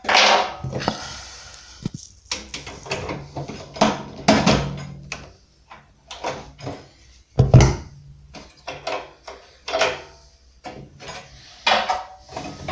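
Irregular clicks, knocks and scrapes of hand work on kitchen cabinets as fittings and tools are handled, with one heavier knock about seven and a half seconds in.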